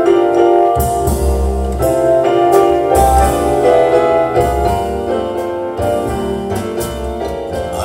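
Piano-led demo music with bass and a few light percussion hits, played back through a Bose S1 Pro portable PA speaker in a large room.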